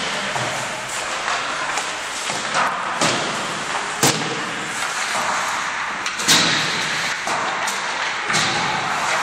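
Ice hockey on a rink: sharp knocks of pucks and sticks, with three louder cracks about 3, 4 and 6 seconds in, the last the loudest. Under them runs a steady hiss of rink noise.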